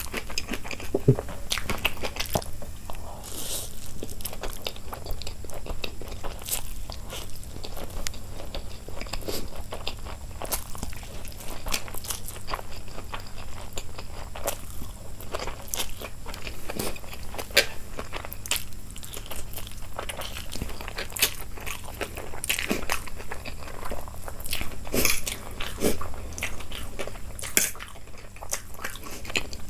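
Close-miked eating: a person chewing and biting food with many irregular crunchy, moist clicks, mukbang-style.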